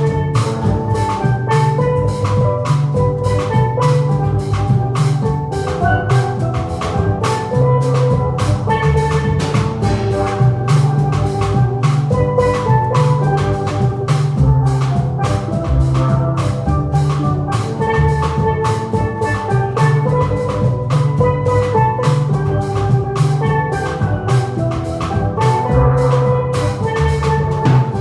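A small live band playing an instrumental song: a steel pan carries the melody over a bass line and a steady drum-kit beat.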